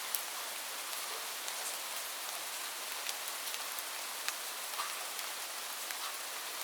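Steady rain falling: an even hiss with scattered sharper ticks of single drops landing close by.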